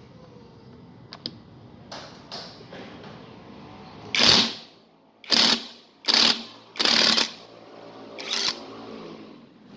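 Ingco 20V brushless cordless impact wrench run in five short bursts about a second apart, the first the loudest, after a few light clicks.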